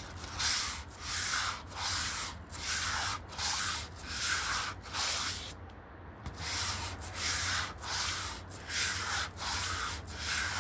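Sandpaper on a sanding block rubbing back and forth over the white primer on a guitar body, in steady strokes about one and a half a second with a short pause about halfway.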